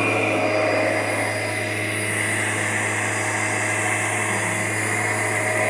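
2001 Kirby Generation 6 upright vacuum running steadily, a constant low hum with a few steady higher tones over it. The owner says it isn't running bad, just a little tight.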